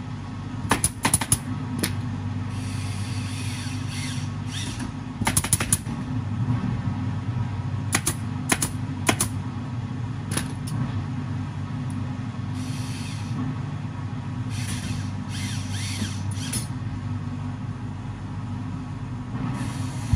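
Steady low machinery hum, with soft rustling of fabric and foam as upholstered cushions are handled, and a few scattered sharp clicks.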